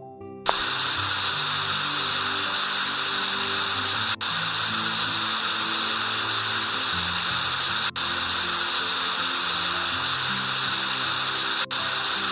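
Background music with a loud, steady, drill-like machine noise that starts about half a second in. The noise cuts out for an instant three times as it loops.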